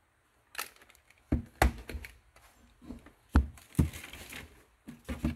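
Irregular knocks and clatter of a wiring harness and tools being handled and set down on a workbench. The loudest thumps come about a second and a half in and again around three and a half seconds, with light rustling between them.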